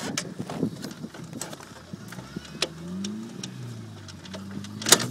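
Yamaha Blaster quad's two-stroke single-cylinder engine starting about halfway through, its pitch rising and then settling into a steady low-pitched run. Before it come scattered knocks and clicks, and a sharp knock comes near the end.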